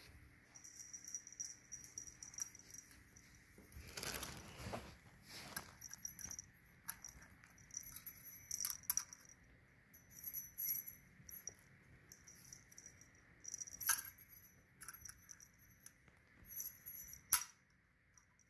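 A feather wand cat toy jingling and rustling in irregular bursts as a kitten bats and bites at it, with scuffs and light knocks on the floor; one sharp knock about a second before the end is the loudest sound.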